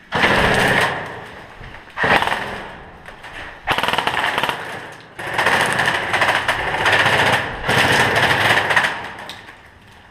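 Airsoft gun firing on full auto in four rapid-fire bursts. The last burst runs about four seconds.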